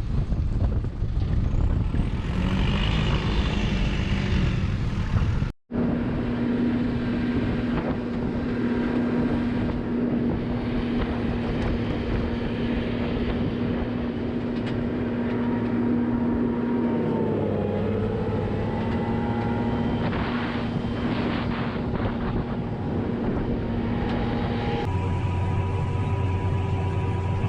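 Farm machinery engines running steadily, with a brief dropout about five and a half seconds in and a change to a different engine sound near the end.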